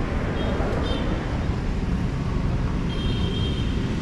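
Street traffic on a city road: a steady rumble of passing vehicles. A few short high-pitched chirps come through about half a second and a second in, and a longer one near three seconds.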